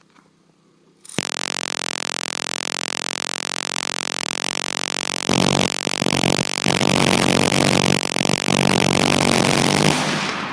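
GE minigun firing .308 in one continuous burst of about nine seconds, a dense buzz that starts suddenly about a second in and gets louder around halfway. It stops near the end and the echo fades away.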